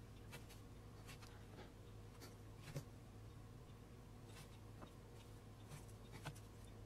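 Faint scratching and scraping of a hand sculpting tool working a small clay head, in short separate strokes, the sharpest about three seconds in, over a low steady hum.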